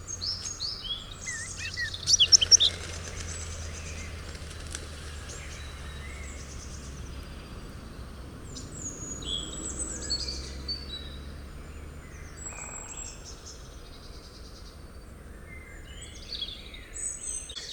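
Small birds chirping and singing in quick, repeated calls, loudest about two to three seconds in, over a steady low hum.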